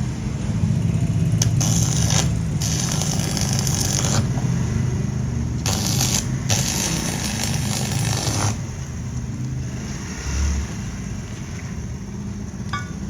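A motor or engine runs with a steady low hum. Over it come several stretches of scraping noise in the first two-thirds, which then fade out.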